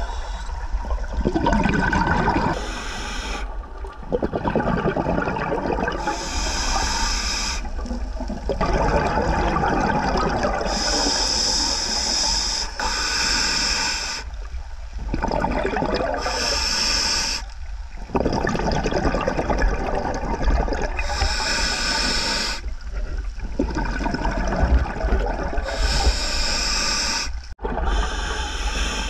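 Scuba diver breathing through a regulator, heard underwater: a short hiss alternating with a longer rush of bubbles, repeating about every four to five seconds.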